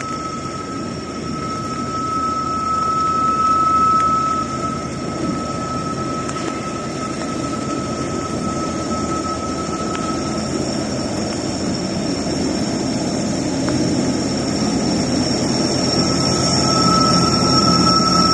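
Intermodal freight train rolling past, its wheels squealing in a steady high tone that fades in the middle and comes back near the end. Under it runs a constant rush of heavy rain and running water.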